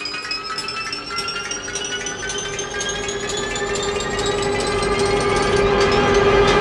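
Metro train accelerating through a tunnel: the electric traction motors' whine rises steadily in pitch. Under it a steady hum grows louder, with a fast run of clicks from the wheels on the track.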